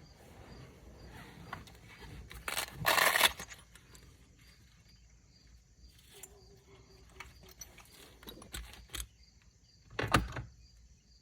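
Handling noise from small tools and parts: light metallic clicks and rattles, with two louder scraping clatters, one about three seconds in and one near the end.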